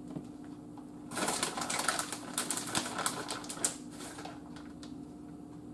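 Plastic bag of shredded mozzarella crinkling and crackling as it is shaken out over a pan, starting about a second in and lasting about two and a half seconds.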